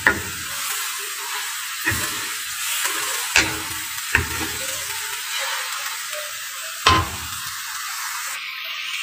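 Instant fried noodles sizzling in a hot pan as a wooden spatula turns them: a steady frying hiss with about five sharp knocks and scrapes of the spatula against the pan.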